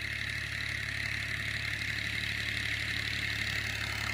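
An engine running steadily at constant speed, a low even hum with no change in pitch.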